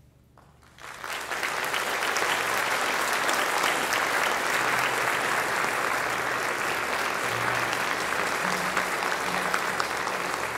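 Audience applauding at the end of a concert band piece, breaking out about a second in and holding steady.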